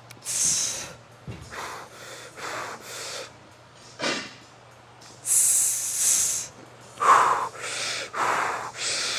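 A man breathing hard through a set of barbell bench presses with 185 lb: a run of quick, forceful breaths in and out, with a long, loud hissing exhale a little past halfway.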